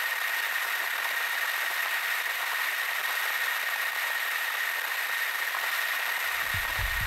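A steady high-pitched whine over an even hiss, like a small motor running. Irregular low thumping starts near the end.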